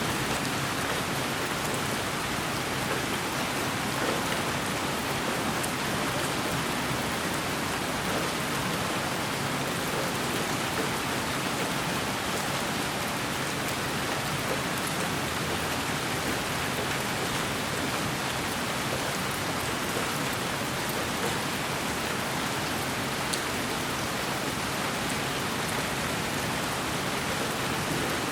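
Steady, unchanging white noise with a rain-like hiss spread evenly from low to high pitches, with faint scattered ticks.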